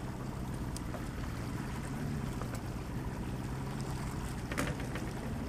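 Boat engine running steadily at low trolling speed, a constant low hum, with water and wind noise over it. A couple of faint clicks near the end.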